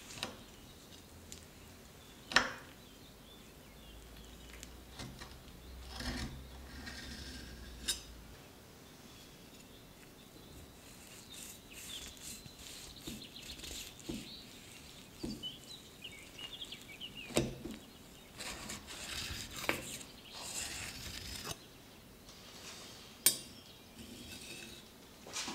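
Occasional clinks and knocks of cutlery and dishes: a few sharp taps several seconds apart, with faint scraping and rustling between them.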